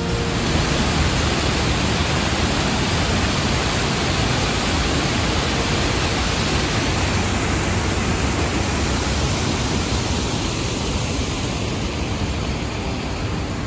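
Waterfall rushing steadily, an even wash of falling water, slightly softer near the end.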